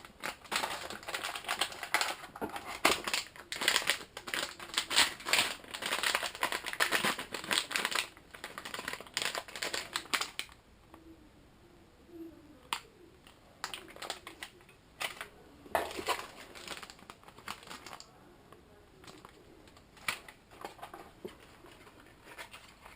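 Packaging and parts being handled: rapid crinkling and clicking for about the first ten seconds, then scattered single clicks and taps.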